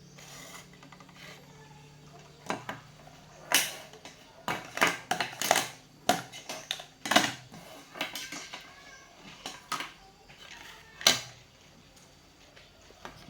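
A string of sharp clicks and clinks of small hard objects, like tools and metal parts being picked up, set down and knocked about on a workbench, loudest a little after the middle.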